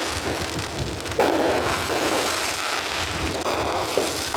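Fireworks display going off in a dense, continuous barrage, recorded through a phone's microphone, with a sharp louder burst about a second in.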